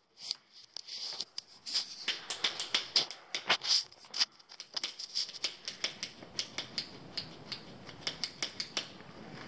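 Footsteps crunching over debris on the floor: irregular light crackles and clicks, several a second.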